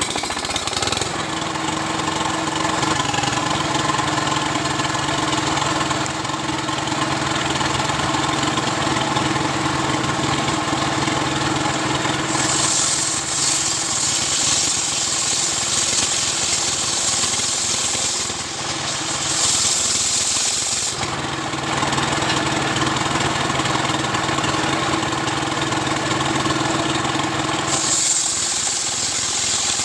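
Stihl chainsaw engine running hard, sawing a coconut-palm trunk lengthwise into beams. The sound turns harsher and brighter for stretches about twelve seconds in, again around twenty seconds, and near the end.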